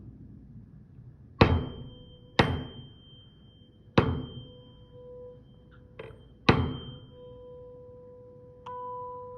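A 512 Hz tuning fork struck four times, with a smaller knock between the last two. Each sharp knock is followed by a steady ringing hum, with a fainter high ring that fades quickly. Near the end the hum suddenly gets louder and holds steady.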